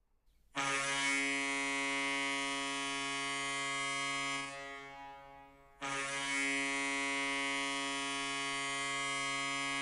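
Hockey arena goal horn sounding two long, low, buzzy blasts, each about four seconds, with a short break between them. It is a generic, middle-of-the-road horn tone.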